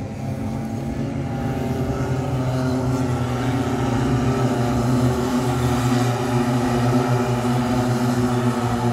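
Two-stroke engines of Micro Max racing karts running on track, several at once, growing louder over the first few seconds and then holding steady.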